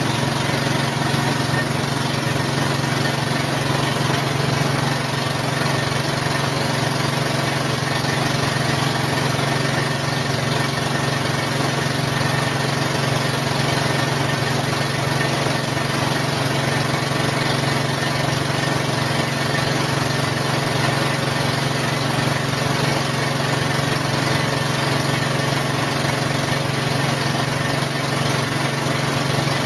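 A small engine running steadily at constant speed, an unchanging drone with no revving or pauses.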